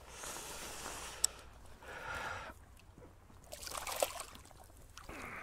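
Water splashing and trickling in three short bursts beside a kayak as a hooked fish is brought to the surface, with a couple of sharp clicks.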